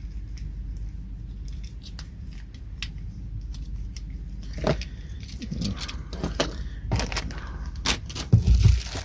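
Clicking and clinking of the handled parts of a camera motorcycle mount. The clicks are sparse at first, then come thicker and louder in the second half, with a low thump near the end.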